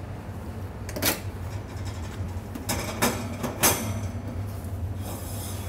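Oven door being opened and handled: a few sharp clicks and knocks, the first about a second in, over a steady low hum.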